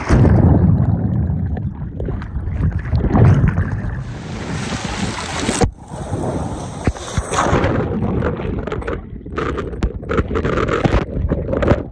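Water rushing and splashing down an enclosed water slide as the rider slides through it, with water and wind buffeting the microphone. It turns choppy in the last few seconds and cuts off at the end.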